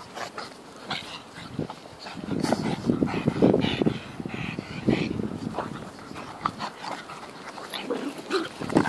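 Two pugs play-fighting, making rough dog noises, loudest from about two to four seconds in.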